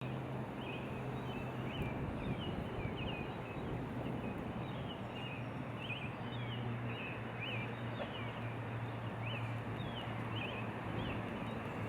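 Boat motor running with a steady low hum under a continuous noisy wash, with short high chirps repeating irregularly about twice a second over it.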